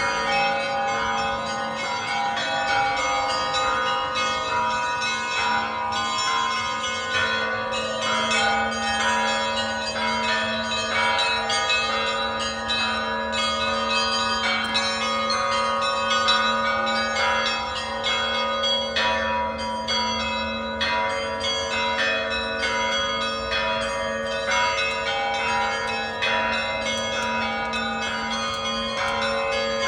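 Several church bells ringing together in a continuous, rapid peal, quick strikes over a steady low bell tone.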